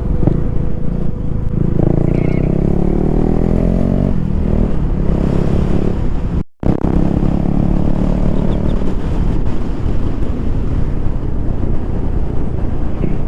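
Motorcycle engine running on the road over heavy wind rumble on the microphone. Its pitch rises twice as it accelerates, and the sound cuts out for a moment about halfway through.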